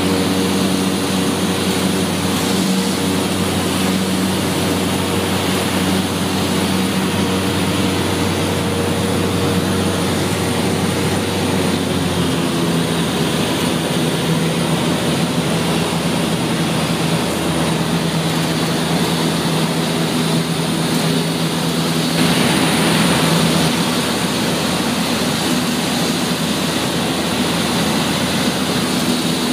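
Small propeller airplane's engine droning steadily, heard inside the cockpit; its tone shifts slightly lower about twelve seconds in, and a rushing hiss swells briefly near the end.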